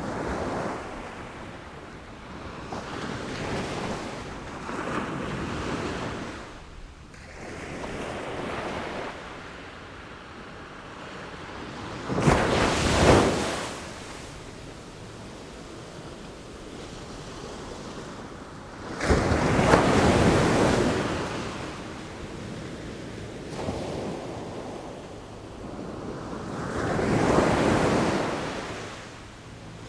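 Sea waves breaking and washing up, swelling and fading every few seconds, with the heaviest crashes about 13 and 20 seconds in.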